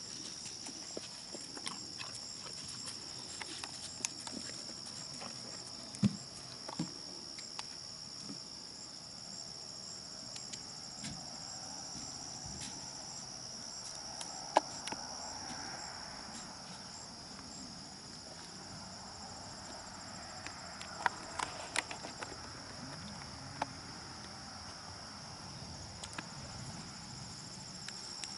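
A horse walking on a sand arena, its hooves landing in soft, irregular thuds, with a few sharp clicks. Insects chirr steadily in the background in a high, even trill.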